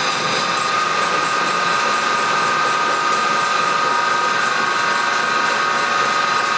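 Old wainwright's bandsaw running, about 110 years old, its wheels turning in oil-filled plain bearings rather than ball bearings. It makes a steady high whine over an even hiss.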